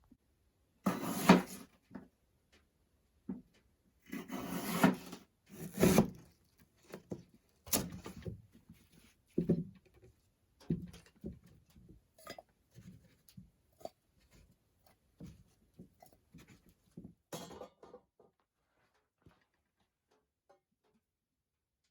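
Irregular knocks, bumps and rustles of things being handled, with the loudest ones in the first ten seconds, thinning to scattered light clicks and then stopping shortly before the end.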